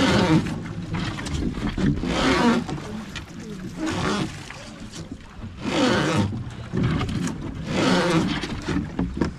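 Wooden river boat being rowed by hand, with a rough, noisy surge at each stroke about every two seconds.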